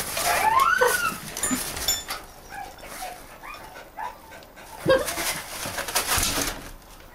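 Terrier whining and yipping in short rising-and-falling cries, several in the first second and one again about five seconds in, as it hunts for a rat, with rustling and scraping of the dog pushing through the debris.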